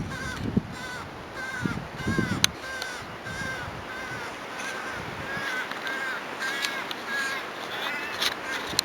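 A bird, taken for a crow, calling over and over: short arched calls about two a second, kept up steadily. A few low thumps come in the first couple of seconds.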